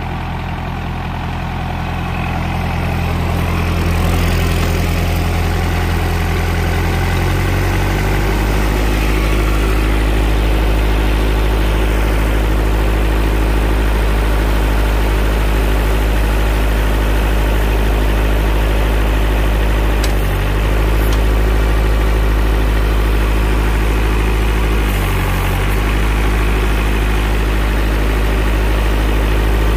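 Diesel engine of a combine harvester converted into a loader, running steadily at idle. Its note drops about eight seconds in.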